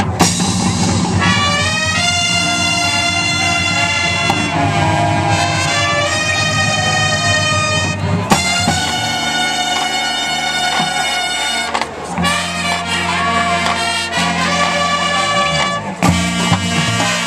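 Marching band playing, its brass holding sustained chords. The music moves to a new passage about 2, 8, 12 and 16 seconds in.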